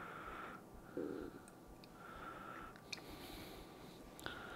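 Faint handling as eggs are separated over a bowl: soft nose breathing, a few thin clicks of eggshell and a soft thud about a second in.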